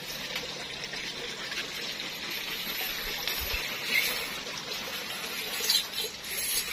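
Running water trickling steadily, with a couple of short high chirps about four and six seconds in.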